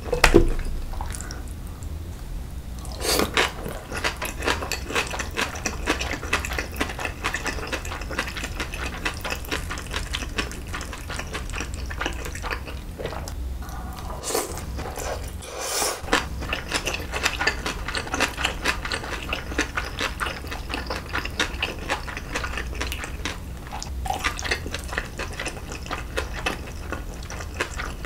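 Close-miked wet chewing of steamed dumplings and cold noodles: a dense, continuous run of small moist smacks and clicks, with a few louder bites.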